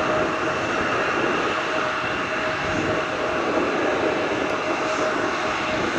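Embraer E170 jet's turbofan engines running steadily at low power, a constant rush with a thin whine over it.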